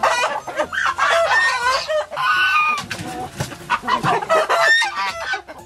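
Chickens and roosters squawking and clucking in alarm as they are chased and grabbed at, a run of short, sharp calls with a few longer squawks in the middle.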